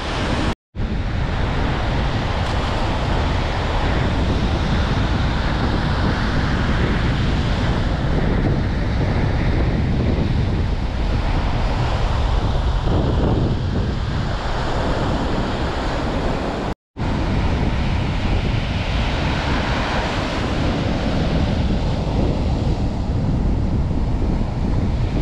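Storm wind buffeting the microphone with a heavy low rumble, over the rush of Baltic Sea surf breaking on the shore. The sound drops out to silence for a split second twice, near the start and about two-thirds of the way through.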